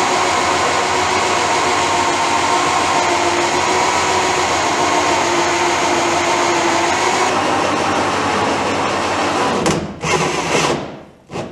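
Electric drill running steadily with a round cutter bearing into the dinghy's plywood transom as it shapes a sculling notch. It stops about ten seconds in, with a couple of short runs just after.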